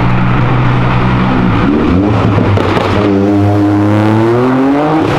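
Lowered Volkswagen up! hatchback's engine running at steady revs, then accelerating from about three seconds in, its pitch rising steadily as the car pulls away.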